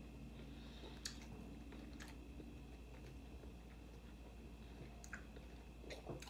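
Faint close-up chewing of a taco: soft wet mouth sounds with a few sharp clicks. The clicks come about a second in, at two seconds, and twice near the end.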